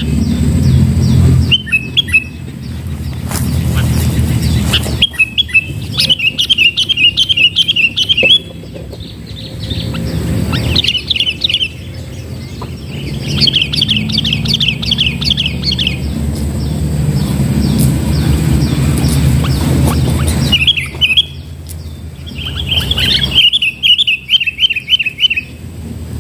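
Sooty-headed bulbul calls: several bursts of quick, evenly repeated chirping notes, each lasting a second or two, over a steady low rumble.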